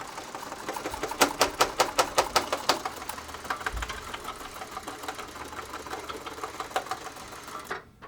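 Heavy-duty sewing machine stitching a skate repair, its needle mechanism clicking in a fast even rhythm of about five stitches a second. The stitching is loudest in the first few seconds and stops suddenly near the end.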